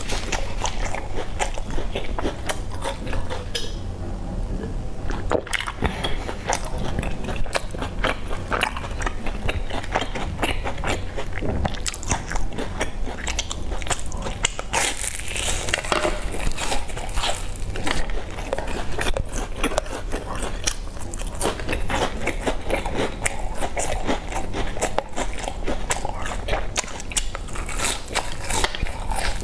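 A person biting into and chewing round crunchy baked pastries: a dense, continuous run of crisp crunches and crackles, over a steady low hum.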